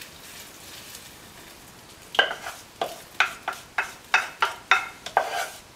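Hot foaming butter-and-syrup mixture poured from a saucepan into a bowl with a faint hiss, then, from about two seconds in, a wooden spoon scraping and knocking against the saucepan about three times a second to clear out the last of it.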